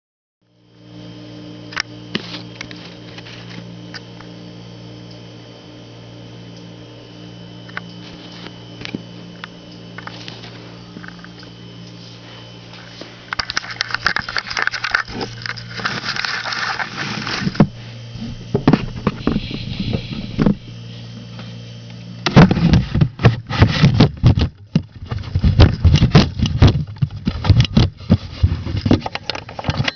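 Paper shredder cutting a plastic key card: loud, irregular cracking and crunching as the rotary cutters chew through it, starting about three-quarters of the way in over a steady low hum. Earlier, rustling and scraping handling noise.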